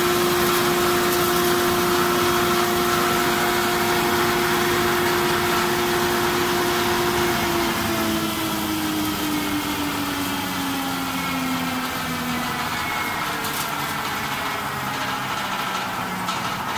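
SW420 hammer-mill feed crusher running with a steady whine over rushing noise; about seven seconds in the whine starts sliding down in pitch and the sound slowly grows quieter as the rotor slows.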